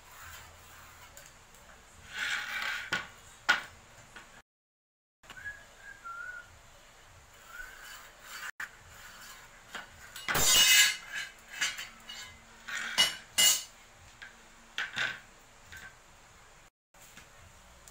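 Metal tools and pieces clinking and clattering on a concrete floor as they are handled, picked up and set down, in scattered knocks with the loudest clatter about ten seconds in.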